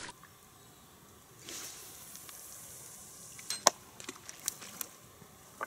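A few sharp clicks and knocks from fishing tackle being handled, the loudest a little past halfway, over a quiet background with a short hiss about a second and a half in.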